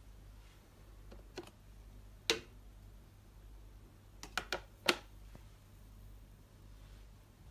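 A few sharp clicks and knocks, as of objects being handled: one about a second and a half in, a louder one just after two seconds, then three in quick succession between four and five seconds, over a low steady hum.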